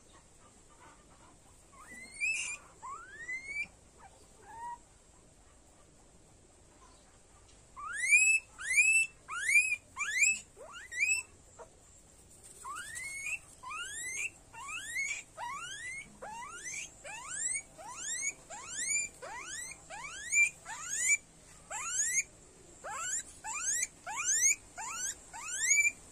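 Guinea pig squealing while held for an injection under the skin: short rising squeals, a few at first, then a steady run of about one to two a second from about eight seconds in.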